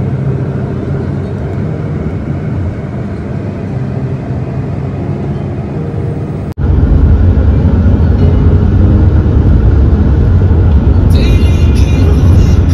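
Car on the road: a steady low rumble of engine and tyres, which jumps suddenly to a louder rumble about six and a half seconds in, with a few brief higher sounds near the end.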